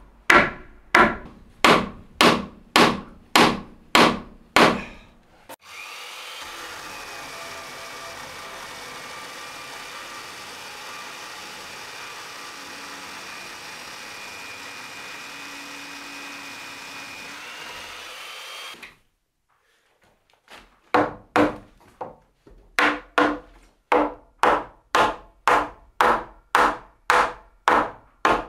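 Wooden mallet knocking timber roof-truss joints together, about two blows a second. About six seconds in, a portable mortiser runs steadily for about thirteen seconds and stops; after a short pause the mallet blows start again.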